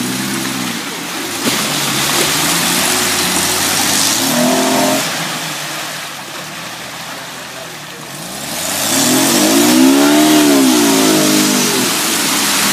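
Jeep engine revving hard in the mud, pitch climbing and falling in surges, strongest about two-thirds of the way through, over a steady rushing noise of spinning tyres and churned mud.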